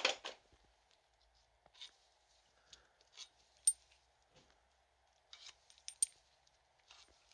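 Scattered sharp metallic clinks of loosened steel bearing-retainer bolts and caps from a differential being handled and set down, the sharpest about three and a half seconds in, over a faint steady hum.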